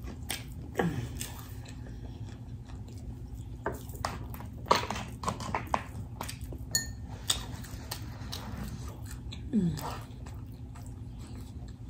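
Close-miked chewing of a mouthful of taco, with wet mouth smacks and clicks scattered through, over a steady low hum.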